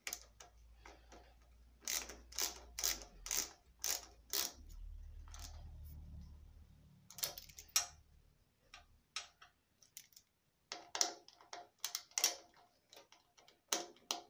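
Small socket ratchet clicking in short runs, about two to three clicks a second, as the nuts holding a CDI unit's mounting plate to a motorcycle frame are tightened. A low rumble comes in around the middle.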